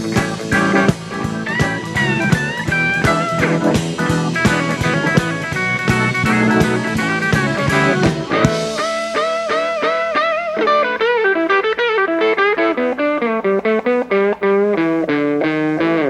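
Blues band playing an instrumental passage: electric guitar lead over drums, with the drums dropping out about halfway and the guitar carrying on alone in a solo run of bent notes and fast picked phrases.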